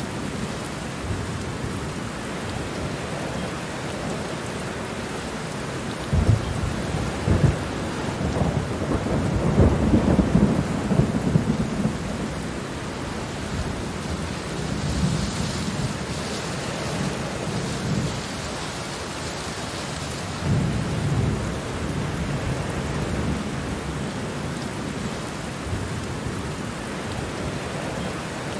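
Steady rain with thunder rumbling low. Two sharp claps come about six and seven seconds in, then a long roll peaks around ten seconds, with softer rumbles later.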